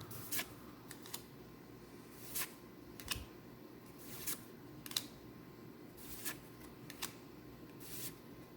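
Trading cards being flipped through one at a time, each card making a short papery snap about once a second.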